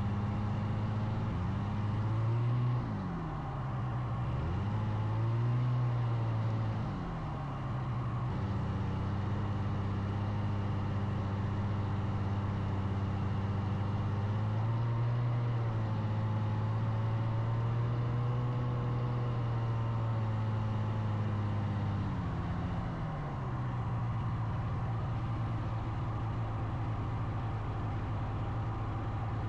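Snowmobile engine running at low speed, a steady note that sags and climbs back as the throttle eases off and opens up again, a few seconds in and again around the middle.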